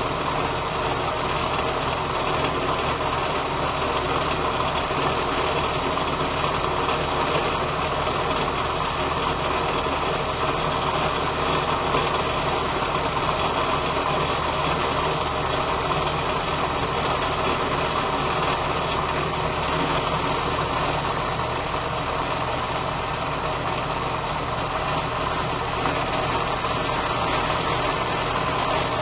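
Drill press running steadily with a 5/16-inch four-flute end mill in the chuck, milling a slot in metal as the work is fed across on a cross-slide vise, taking a shallow cut of about eight thousandths of an inch.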